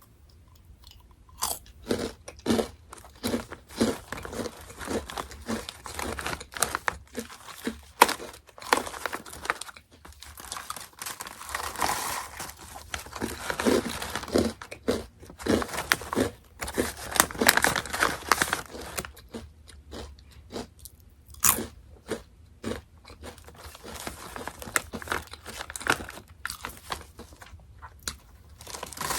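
Orion mala-seasoned Chicken Pop crackers being bitten and chewed: crisp crunches, at times in a steady chewing rhythm of about two a second.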